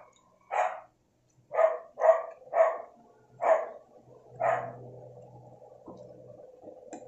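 A dog barking: six short, sharp barks spread over the first five seconds.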